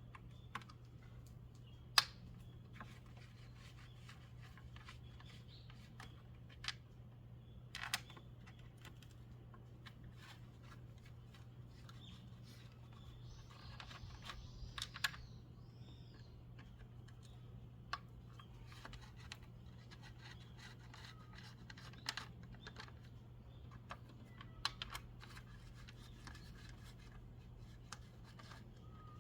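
Scattered light clicks and knocks, the sharpest about two seconds in, over a steady low hum.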